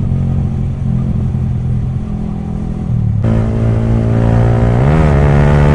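Yamaha R15 V3's 155 cc single-cylinder engine idling through an aftermarket exhaust with the dB killer removed. At first the sound is muffled; about three seconds in it turns suddenly brighter and fuller, and near the end there is one short blip of the throttle.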